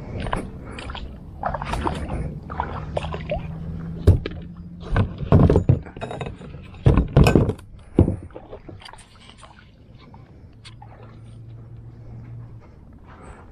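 Kayak on the water: a run of knocks and water noise against the hull, with several loud thumps between about four and eight seconds in, then quieter.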